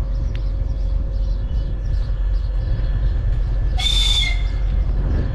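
2TE10U diesel locomotive idling with a steady low rumble. About four seconds in, a short high-pitched whistling hiss sounds for about half a second.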